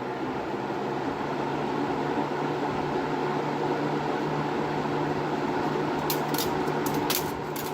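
A 20-inch Kmart box fan running with a steady motor hum and air rush. From about six seconds in, a rapid, irregular clicking starts: something loose inside the cabinet is being struck by the spinning blades.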